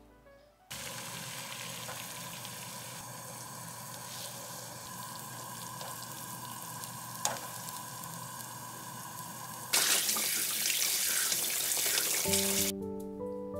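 A pot of water boiling with a slab of pork belly being blanched in it, a steady bubbling hiss with one sharp click about seven seconds in. Then a kitchen tap runs louder over the blanched meat for about three seconds, rinsing off the scum, before music comes back in.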